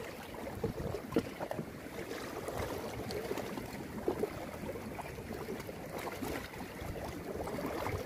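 Steady wind noise on the microphone over sea water lapping against a concrete breakwater.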